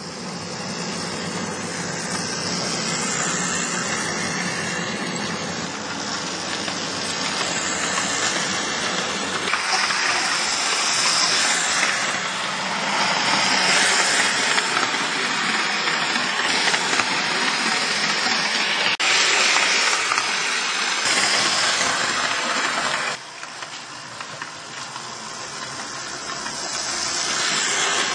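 Electric model train running on the layout's track, heard close up: a steady whirring hiss of the motor and wheels rolling on the rails. The level drops suddenly about 23 seconds in and climbs again near the end as a model tram passes close by.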